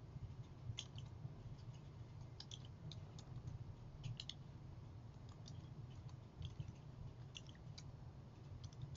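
Faint, scattered clicks of computer keyboard keys as a password is typed, some in quick little runs, over a steady low hum.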